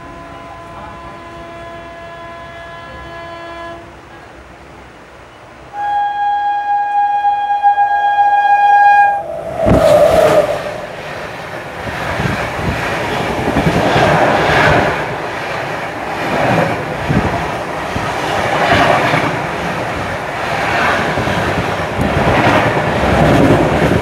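A train horn sounds faintly, then much louder for about three seconds from six seconds in. About ten seconds in a sudden loud rush breaks in, followed by heavy rhythmic clatter of train wheels on rail joints, swelling and fading every second or two.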